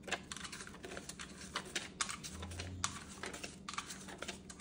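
Paper banknotes rustling and flicking as they are pulled from a desktop cash holder and handled, a string of short crisp clicks.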